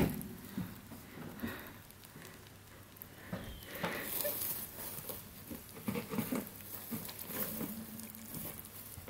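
Young rabbits shuffling and moving about in a wire cage, with irregular rustling and light knocks as an arm reaches in and brushes among them and the cage; a sharp knock right at the start.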